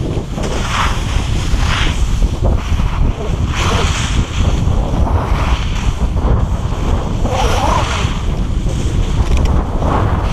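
Wind buffeting the microphone of a pole-mounted action camera during a downhill ski run, with repeated bursts of hissing scrape from skis carving on snow.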